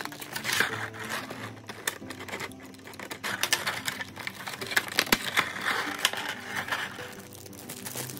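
Clear plastic blister tray and the figure's plastic bag crackling and clicking as they are handled, with many quick sharp clicks. Background music plays underneath.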